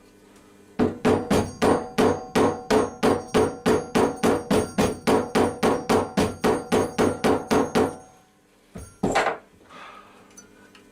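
Body hammer tapping rapidly on the sheet steel of a Daewoo Matiz body panel, about four light ringing blows a second for some seven seconds, with one more blow near the end. The panel is being knocked down around a dent while a spotter puller holds it under tension.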